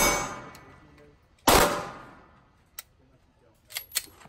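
A pistol shot about a second and a half in, with a ringing tail that fades over about half a second, following the fading tail of a shot fired just before. A few short, lighter metallic clicks follow near the end.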